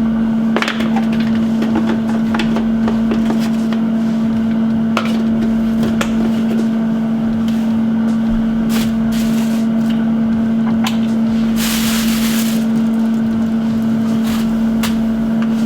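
Steady low hum under light clicks and knocks of kitchen utensils, with a brief rustle about twelve seconds in.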